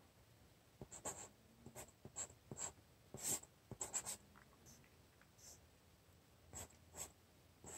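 Felt-tip Sharpie marker writing on paper: a run of short, faint strokes over the first few seconds, a pause, then a few more strokes near the end.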